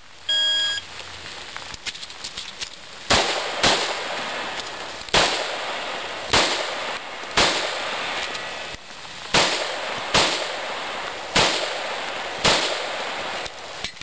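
An electronic shot-timer start beep lasting about half a second, then, a few seconds later, a string of pistol shots spaced about a second apart, each with a short ringing echo.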